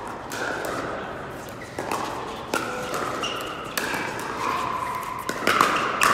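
Pickleball paddles striking a hard plastic ball during a rally: a run of sharp pops, faster and loudest near the end as the players volley at the net. The pops ring in a large hall.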